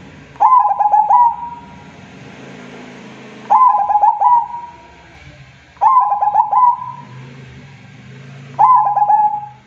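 Zebra dove (perkutut) calling: four phrases of quick stuttering coos, each about a second long, repeated every few seconds.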